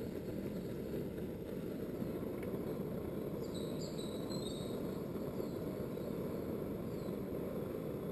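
Vintage petrol Optimus camping stove burning steadily after priming, with a steady low roar.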